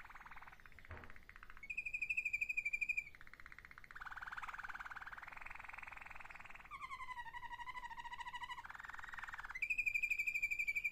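Malinois (Waterslager) song canary singing a string of distinct phrases: a clear high trill about 2 s in and again near the end, with fast rolling trills and a wavering warble between them.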